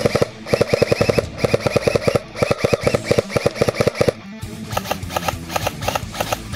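Airsoft electric rifle firing several rapid full-auto bursts with short pauses between them. About four seconds in the firing stops and rock music with a steady beat takes over.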